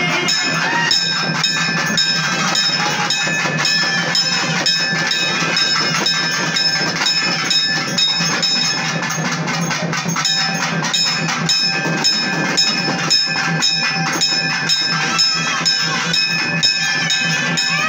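Loud, fast, dense festival percussion, drums struck in a rapid continuous rhythm, with steady ringing tones held over it throughout.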